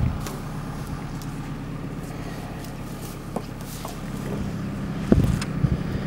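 Narrowboat engine idling with a steady low hum, and a sharp thump about five seconds in.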